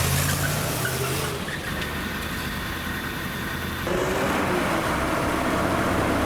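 A car engine running amid steady street noise. The sound changes abruptly about a second in and again near four seconds.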